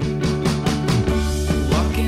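Background music with a steady beat and sustained pitched tones.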